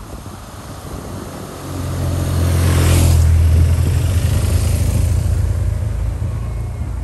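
Two heavy touring motorcycles riding uphill and passing close by, their engines humming louder as they near. The loudest point, a rush of engine and road noise, comes about three seconds in as the first bike goes past, then the sound eases off.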